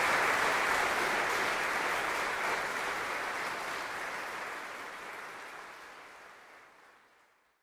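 Audience applauding, fading out steadily to silence near the end.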